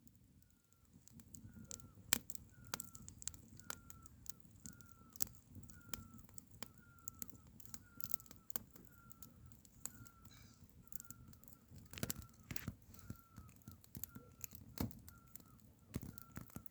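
A bird repeating one short, slightly falling note about twice a second, steady and evenly spaced, with scattered sharp clicks and a low background rumble.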